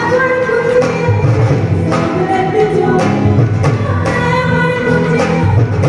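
Loud music with a singing voice over bass and a steady beat.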